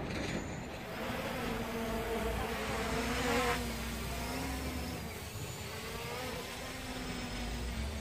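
Hubsan H501S quadcopter's brushless motors and propellers buzzing overhead: a steady hum whose pitch wavers slightly as it flies.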